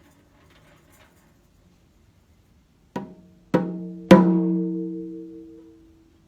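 A drum struck three times, boom, boom, boom, each stroke ringing out. The third stroke is the loudest, and its ring fades over about two seconds.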